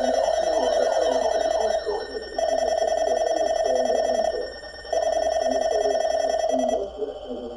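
Electronic emergency alert tone beeping over TV programme audio: a steady mid-pitched tone about two seconds long with half-second gaps, three times, stopping near the end.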